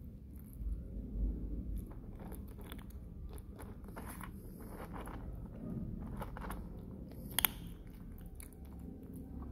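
Kitten crunching dry kibble: irregular crisp crunches and clicks of chewing, with one sharper snap about seven and a half seconds in.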